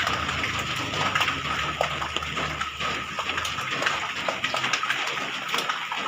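Rain falling steadily on a house terrace, a constant hiss full of separate drop hits. A low hum sounds under it and fades out just over halfway through.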